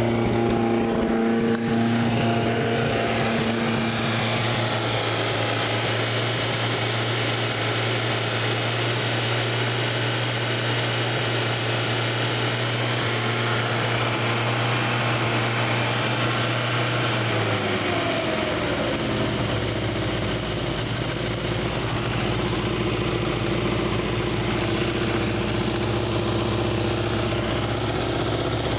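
MGB's 1.8-litre B-series four-cylinder engine running steadily at idle; its speed drops and settles lower about two-thirds of the way through.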